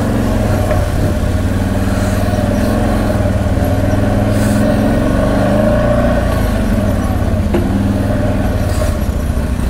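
CFMoto X8 ATV engine running under changing throttle, its pitch rising and falling as it picks its way over rocks, with a short knock about three quarters of the way through.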